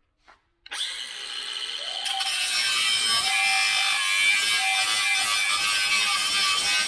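Cordless angle grinder spinning up under a second in and cutting into a metal plate held in a vise, a steady grinding that gets harsher about two seconds in as the disc bites into the metal.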